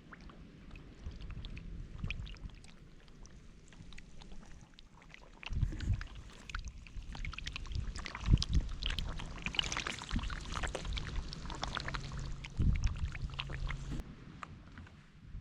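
Water splashing and sloshing, with several dull low thumps.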